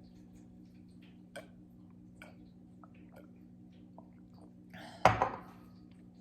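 A person sipping sugared sparkling water from a glass: faint small mouth and glass ticks, then one loud, short sound about five seconds in, all over a steady low hum.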